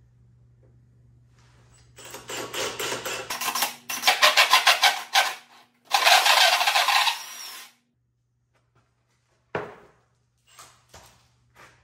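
Cordless drill running a hole saw into plywood to cut the wheel's hub pilot hole, in two runs of a few seconds each, the first with a rhythmic chatter. A single knock follows near the end.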